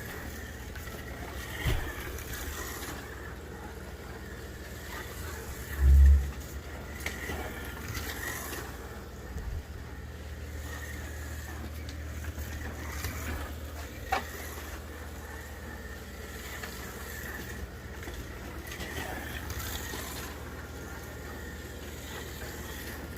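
1/24 scale slot car with an electric motor running on a slot car track: a steady hum with a faint wavering whine and scattered clicks. A loud low thump about six seconds in.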